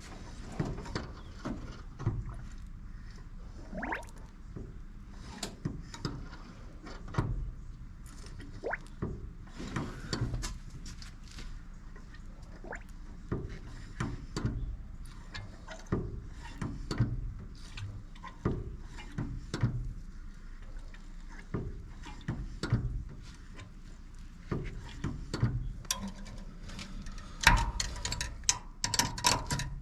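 Irregular clicks, knocks and clunks of hand work with tools and metal parts, one every second or so, with a busier cluster of louder clatter near the end.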